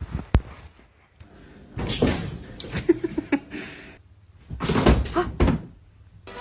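Several sharp knocks and thumps, like a door banging, with scuffling noise and a few short squeaky sounds in between.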